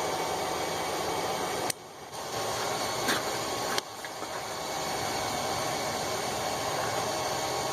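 Forge running with a steady rushing hiss while quenched tongs are held in the heat to bake on the oil finish. The hiss drops off abruptly twice, near two and four seconds in, and builds back each time.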